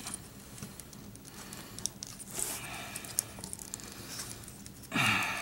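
Transparent plastic parts of a Transformers action figure clicking and rubbing as it is transformed by hand: faint scattered ticks and a brief scraping rub about two and a half seconds in. Near the end there is a short vocal sound from the person, falling in pitch.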